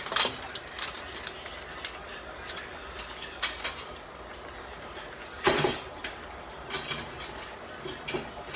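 A few scattered clinks and knocks of kitchen things being handled, the loudest about five and a half seconds in, over a steady hiss.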